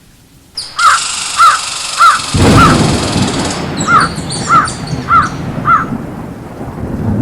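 Crow cawing: eight harsh caws in two runs of four, about one every half second, over a windy hiss. A low rumble joins after about two and a half seconds.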